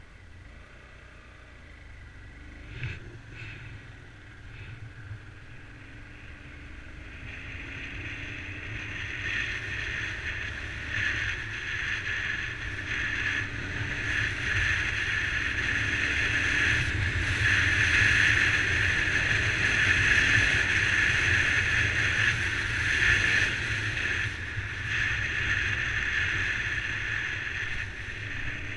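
Wind and road rush on a camera riding on a Honda CBR125 motorcycle under way. It grows much louder over the first half as the bike gathers speed. Beneath it, the single-cylinder engine's note is faint and rises in pitch a few times.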